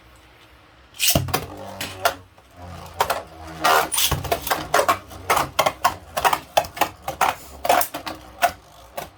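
Two Hasbro Beyblade Burst Quad Drive spinning tops launched into a stadium about a second in, then spinning with a low whir and clashing, with many quick, irregular clacks as they strike each other.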